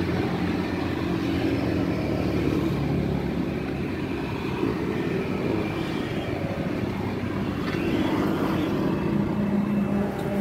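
Steady road traffic: motor vehicle engines running close by, an even low hum with no distinct events.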